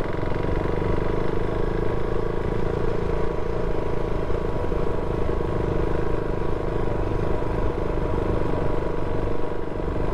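Motorcycle running steadily on the move, with an even engine note over a low rumble of road and wind noise.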